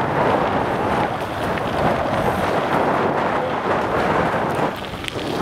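Wind buffeting the microphone: a steady rushing noise that eases a little near the end.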